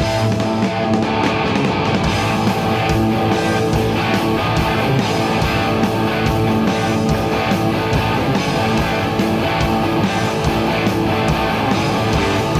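Rock music with electric guitar, loud and continuous.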